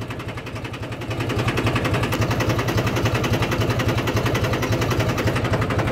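Mahindra 265 DI tractor's three-cylinder diesel engine running steadily at low speed, heard at the exhaust silencer. It is labouring under load in low-range third gear with the tiller dug into the soil, and it keeps running without stalling.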